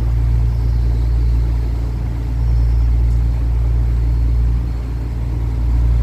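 A boat's engine running steadily under way, heard from on board as a deep, constant hum with a hiss of wind and water over it.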